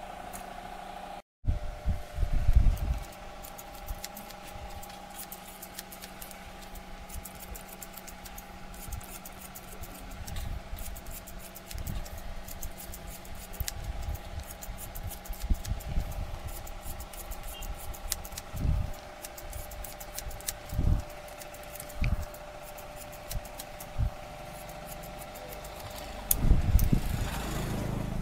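Barber's scissors snipping through hair in many quick small cuts, over a steady hum, with occasional dull low thumps, the loudest about two seconds in and near the end.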